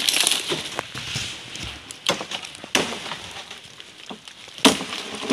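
Rustling and crackling of tokou palm fronds and undergrowth, with about four sharp snaps or knocks, the loudest near the end.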